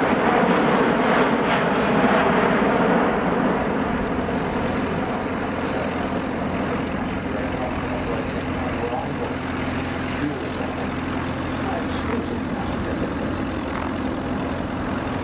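Airbus A350-900's Rolls-Royce Trent XWB turbofans roaring as the airliner passes close overhead in a display flight. The roar is loudest for the first three seconds, then eases into a lower, steady rumble as the jet banks away.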